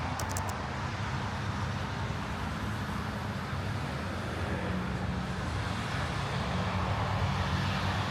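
Steady rumble and hiss of a running vehicle, with a low engine hum underneath and a few light clicks at the very start.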